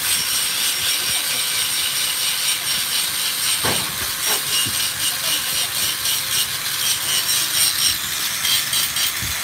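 Angle grinder running with its abrasive disc grinding against a Yamaha RXZ engine case: a steady high whine over a constant grinding hiss.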